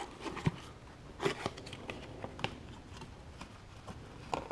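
A new oil filter being taken out of its cardboard box: scattered light cardboard rustles and clicks, with a small cluster about a second in and another near the end.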